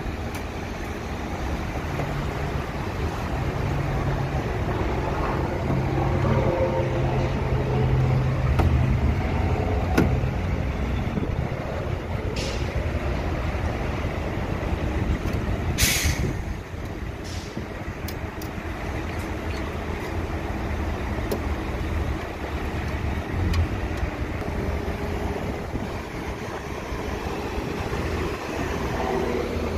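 Heavy truck engine running steadily, with a few sharp clicks and a short burst of air hiss about sixteen seconds in.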